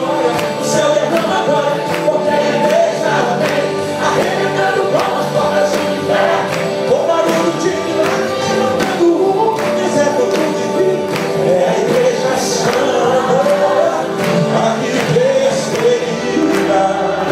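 Live gospel music: a male lead singer sings into a microphone over a band with a steady beat, amplified through the church's sound system, with other voices singing along.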